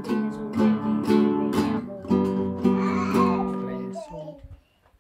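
Acoustic guitar strummed in chords, about two strums a second, ringing out and dying away about four seconds in as the song ends.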